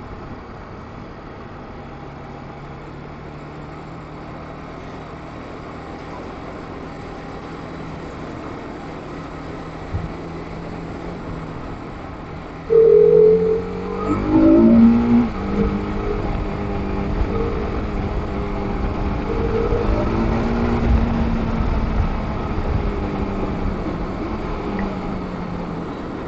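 TVS Apache RR 310's single-cylinder engine running while riding, steady at first, then pulling harder with rising revs and more wind rumble about halfway through. A few short, loud, steady-pitched tones cut in over it.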